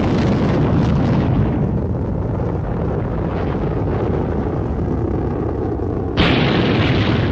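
Rocket launch: the exhaust blast makes a steady, heavy low rumble, with a harsher, brighter rush coming in suddenly about six seconds in.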